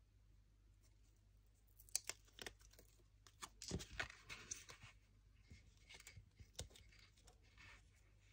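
Faint paper handling as the backing is peeled off double-sided tape on a cut-paper dragonfly and the dragonfly is pressed onto the card stock. A cluster of short crackles and clicks comes about two to five seconds in, followed by lighter rustles.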